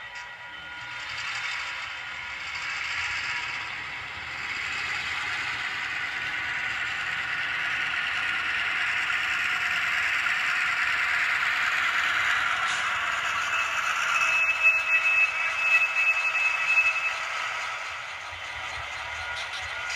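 HO-scale model diesel locomotive fitted with a SoundTraxx Tsunami2 sound decoder, running past close by: the clatter of its wheels and drive on the track mixed with the decoder's engine sound, growing louder towards a peak about two-thirds through. A thin steady high squeal and a few clicks come in at the loudest part.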